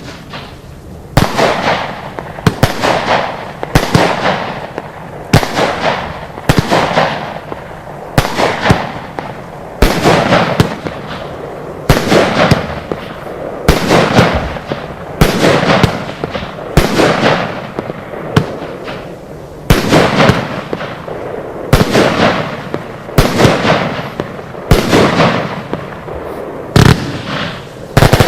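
Lesli 'Tatjana' firework going off in a long run of shots, about one a second. Each is a sharp bang that trails off over about half a second.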